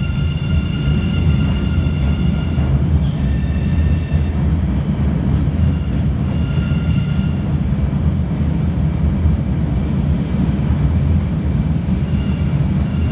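MBTA Red Line subway train pulling out of an underground station: a loud, steady low rumble of the cars rolling along the platform, with faint high whining tones that come and go.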